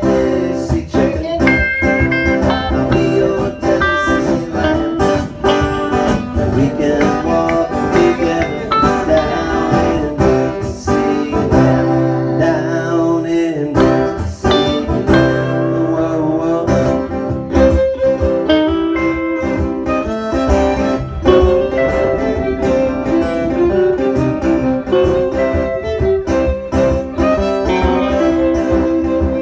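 Live band of electric guitar, acoustic guitar and violin playing a bluesy country-rock song.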